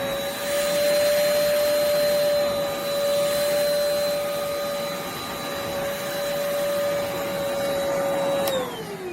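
Hoover Spotless portable spot cleaner's suction motor running with a steady whine and rushing hiss as it vacuums up the cleaning solution from the carpet. Near the end the motor stops and winds down, its whine falling steadily in pitch.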